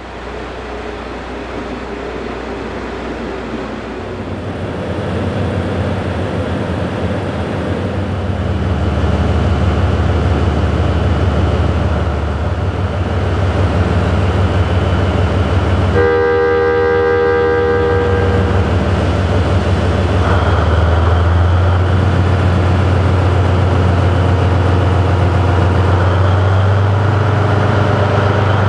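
DF200-7000 diesel-electric locomotive running, its engine drone growing louder; its horn sounds once for about two seconds midway, and a few seconds later the engine revs up as the train starts to pull away.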